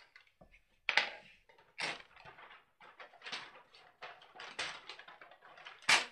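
Pattern paper being handled: a series of short rustles, roughly one a second, the loudest about a second in and near the end.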